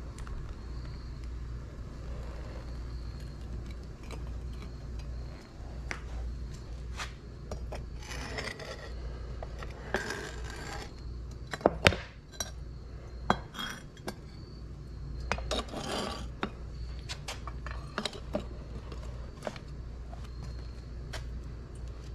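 Steel tongs and a metal ingot mold scraping and knocking against a concrete block as a freshly cast copper ingot is tipped out and handled. There are several scrapes and a few sharp clinks near the middle, over a steady low hum.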